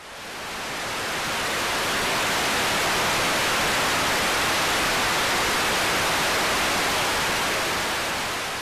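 Television static: the steady hiss of an untuned analog TV, swelling in over the first couple of seconds and fading away near the end.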